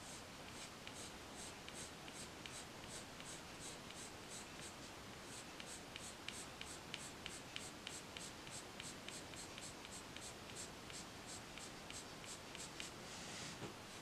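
Prismacolor coloured pencil scratching faintly on paper in short, quick flicking strokes, about three a second, with one longer stroke near the end.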